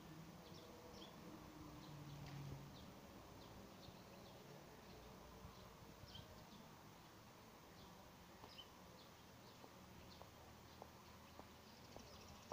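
Near silence: quiet outdoor ambience with faint, scattered chirps of small birds. A faint low hum is heard in the first two to three seconds.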